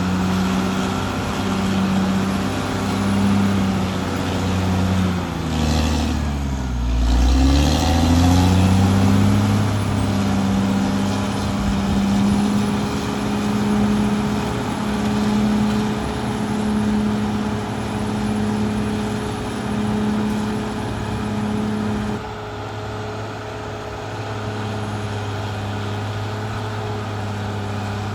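Caterpillar D6R XL bulldozer's diesel engine running under load. Its note dips and recovers about six to eight seconds in, and it eases off slightly near the end.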